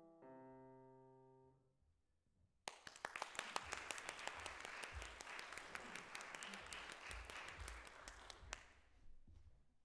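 The last chord of an August Förster grand piano ringing and fading out. After a short pause, an audience applauds for about six seconds, and the applause dies away near the end.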